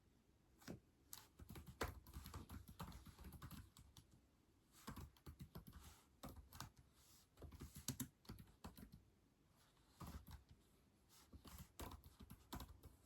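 Faint keyboard typing in quick runs of keystrokes, with short pauses about four seconds in and again around ten seconds.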